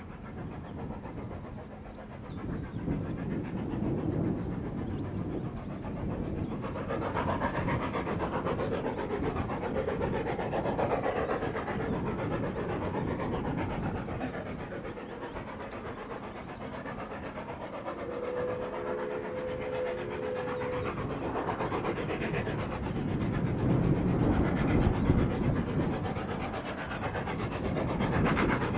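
Steam tank locomotive No. 29, an 0-6-2T, chuffing with its train as it approaches. Its exhaust beats grow louder as it nears. A steady whistle sounds for about three seconds, about two-thirds of the way through.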